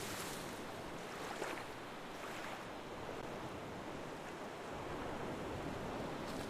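Steady rushing water, like surf washing in, with a few brief louder washes in the first few seconds.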